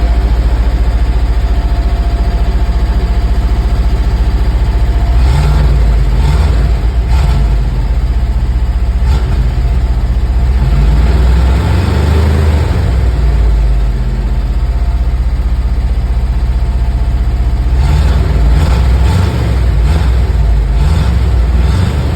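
Engine of a 1970 GMC pickup fire truck running after start-up, mostly idling, with a few short rises in engine speed.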